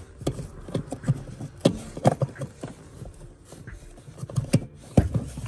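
Irregular clicks and knocks, several a second, of hands working a wiring plug onto a newly fitted heater blower motor and handling the parts around it.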